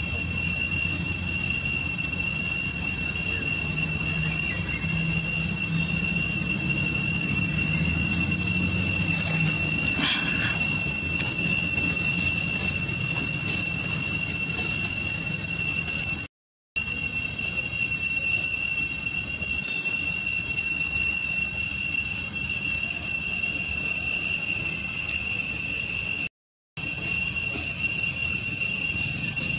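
Cicadas droning steadily at a high, even pitch over a low hum; the sound cuts out completely for a moment twice.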